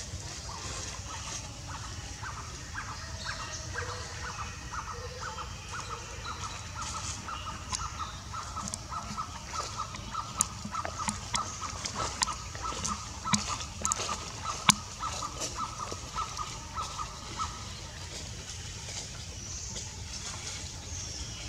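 A bird calling a long, even series of short identical notes at one pitch, about three a second, that stops near the end. Sharp clicks are scattered through the middle, the loudest about two-thirds of the way in.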